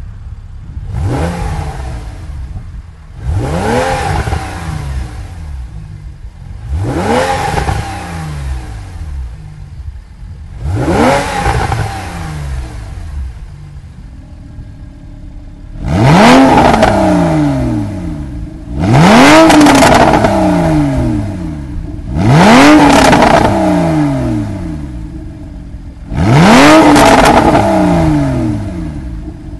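Porsche 911 (991) Carrera flat-six engine blipped eight times from idle through a Topgear Performance stainless steel valved exhaust. Each rev rises sharply and falls back to idle. The last four blips, with the exhaust valves open, are much louder than the first four.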